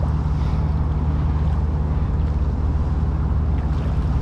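Steady rushing of water pouring from a sewer discharge outfall and churning into the bayou, with a deep low rumble beneath.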